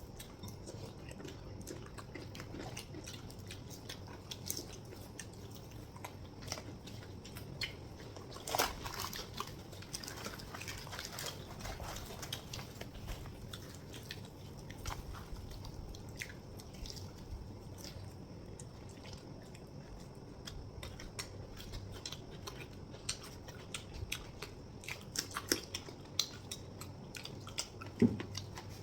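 Chhole bhature being eaten: bites, wet chewing and mouth clicks, scattered irregularly over a steady low hum, with a sharper click near the end.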